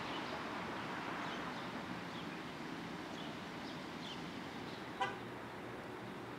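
Steady street traffic noise, with one short car horn toot about five seconds in.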